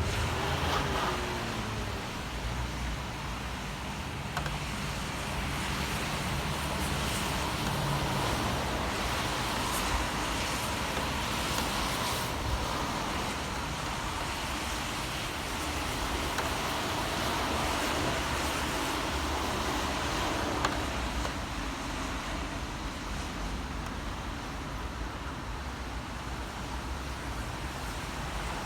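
Steady city traffic on rain-wet streets: cars passing in slow swells over an even hiss, with a few faint ticks.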